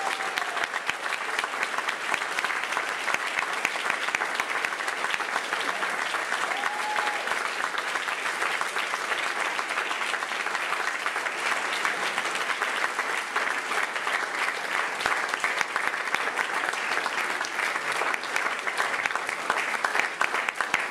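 A seated crowd applauding: steady, sustained clapping from many hands, with a few voices mixed in.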